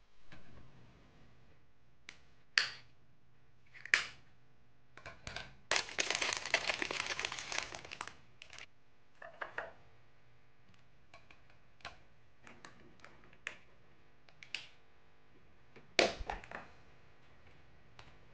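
Plastic cosmetic jars and tubes being handled and set into a small wire cart: scattered sharp clicks and taps, with a crinkling, crackling stretch of about two seconds some six seconds in.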